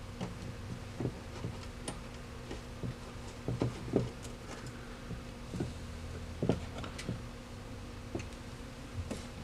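A small screwdriver clicking and scraping against the metal parts of a Victor 77 gumball vending mechanism as a screw is driven in, with scattered light taps. Under it runs a steady low hum.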